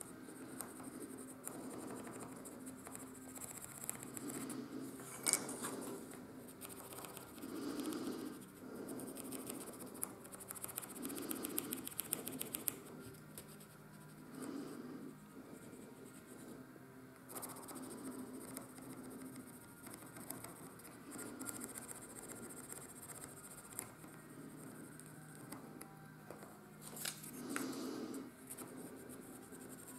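Pencil lead scratching and rubbing along the edges of holes in a thin laser-cut wooden part, laying down graphite as a dry lubricant so the piston rod and slide valve move without friction. The strokes are faint and irregular, with a few light knocks.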